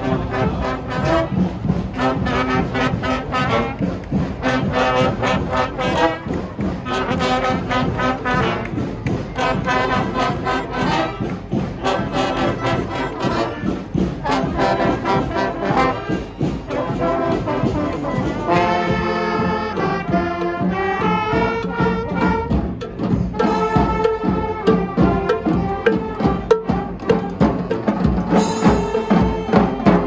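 A marching street band playing, led by trombones and other brass, over a steady beat of drums that comes more to the fore near the end.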